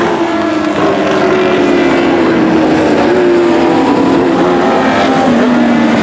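Micro 600 sprint cars running on a dirt oval, their 600 cc motorcycle engines heard together as several wavering engine notes over a steady noise, one note sinking slightly near the end as a car passes close.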